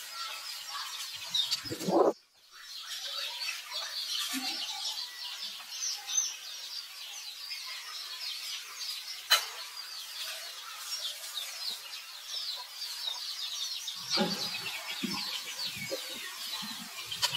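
Many small birds chirping continuously in the background, with the sound dropping out briefly about two seconds in and a single sharp click a little after nine seconds.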